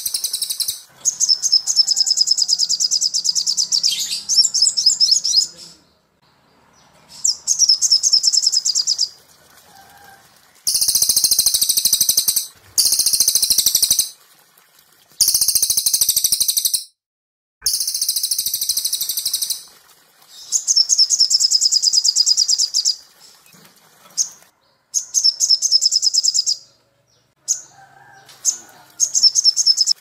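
Small songbirds (the cililin and sogok ontong of a bird-song master track) singing high-pitched songs of very fast repeated notes and trills. The songs come in bouts of one to three seconds with short pauses between them.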